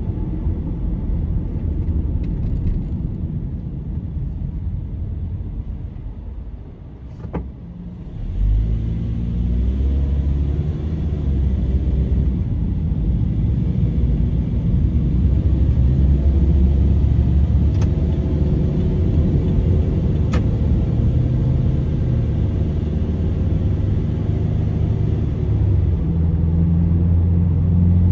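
A car's engine and tyre noise, heard from inside the cabin. It is quieter while the car slows for a roundabout. About eight seconds in the engine note strengthens and climbs in steps as the car accelerates away, then holds a steady drone at cruising speed.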